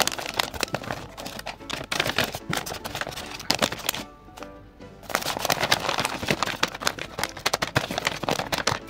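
Background music under paper rustling, crinkling and sharp clicks from handling a paper blind bag, with a short lull about four seconds in.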